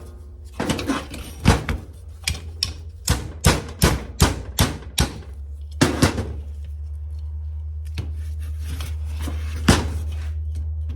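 Hammer tapping the pivot pin of a VW Beetle throttle pedal into the pedal assembly: about a dozen sharp strikes, a couple a second, then one more strike near the end, over a steady low hum.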